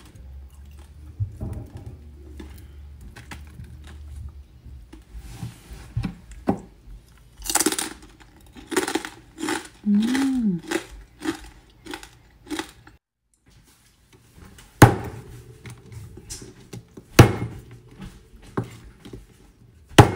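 Crunchy pork skin being chewed, with crackling clicks in the middle, then three sharp chops of a large knife through crispy pork leg onto a wooden chopping board, a couple of seconds apart.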